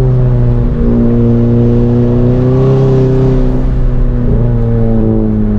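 Modified Volkswagen MK7 GTI's turbocharged four-cylinder with an aftermarket cat-back exhaust, running at a steady cruise. The engine note holds nearly level, dipping slightly early on and rising and falling gently midway.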